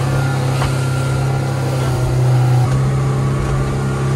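Motorboat engine running steadily at cruising speed, a loud low drone over the rush of water from the wake. The drone steps slightly lower in pitch about two and a half seconds in.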